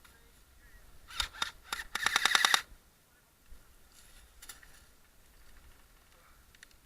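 Airsoft gun firing three single shots, then a short rapid full-auto burst of about half a second.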